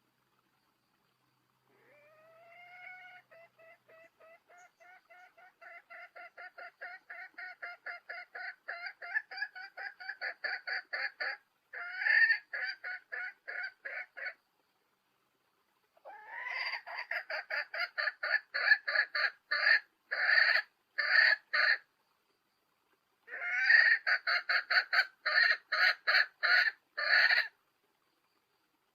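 Recorded call of a hen, played as a lure to rouse cocks into breeding mood: short clucking notes repeated about three to four a second, in one long series that builds in loudness and then two shorter loud bouts.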